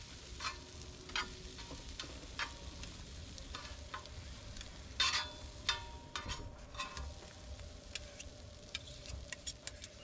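Kitchen utensils and containers clinking and knocking during food preparation: a dozen or so short, irregular knocks, some ringing briefly, over a low steady rumble.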